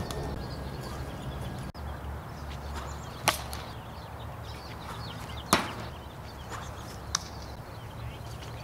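Sharp smacks of a wiffle ball in play: one crack about three seconds in and a louder one about two seconds later, then a fainter click near the end.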